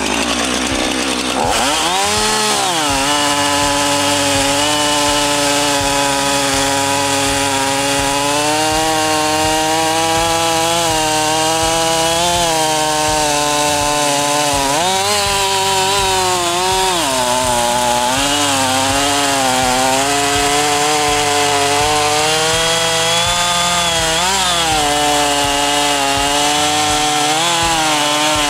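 Husqvarna 450 two-stroke chainsaw running at full throttle while cutting through a 17-inch log. The engine note sags and recovers several times as the chain loads up in the wood.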